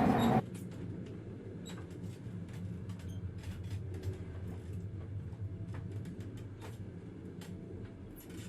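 Steady low rumble of a moving train carriage heard from inside, with many faint scattered clicks and creaks. A louder sound cuts off abruptly about half a second in.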